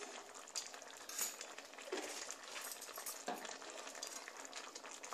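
Shukto's milk-thickened gravy simmering in a wok, a soft steady sizzle with scattered small crackles and pops as it comes up to a gentle boil.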